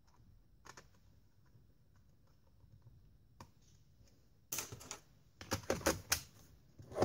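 Bottom cover of a Dell Latitude E7440 laptop being set onto the base and pressed down: a few faint ticks, then a quick run of sharp clicks and taps from about four and a half seconds in as the panel seats onto the chassis.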